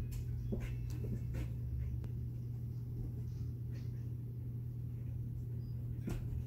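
Faint, scattered rustles and taps of a Samoyed puppy pawing at and stepping into a fabric pet bed, over a steady low hum.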